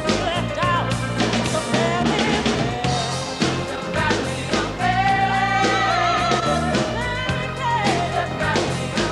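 A pop song: a singer over a band with drums, holding one long note about halfway through.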